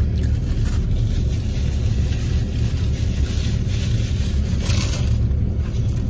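Steady low rumble of a car engine idling, heard from inside the cabin, with a brief soft rustle a little before five seconds in.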